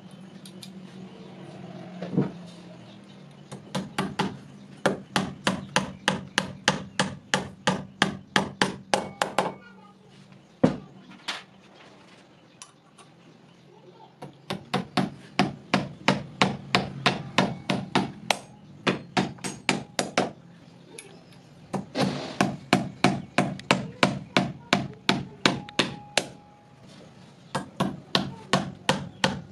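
Hammer driving steel nails through the mounting plate of a forged wall hook rack into a plastered wall: quick runs of sharp taps, about two to three a second, broken by short pauses.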